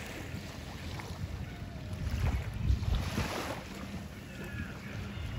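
Wind buffeting the phone's microphone over the wash of small waves lapping at the shore, with a louder rush about three seconds in.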